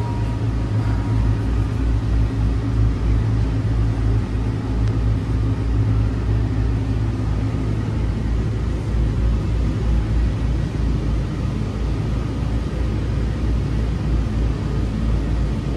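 Steady low rumble inside a cable-hauled airport people-mover car as it rolls into a station and comes to a stop.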